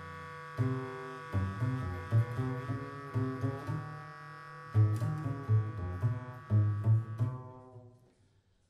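Improvised jazz from a bass clarinet and double bass duo: a run of low double bass notes under a long held tone. The music fades away near the end into a brief silence.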